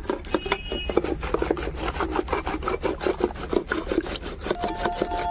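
A hand-spun dal ghotni (churning stick) whisking thick curd in a steel pot: rapid rhythmic sloshing and scraping, several strokes a second. The curd is being whipped to a froth for lassi.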